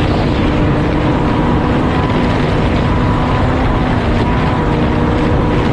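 Snowmobile engine running at a steady pitch while riding, over a dense rush of noise.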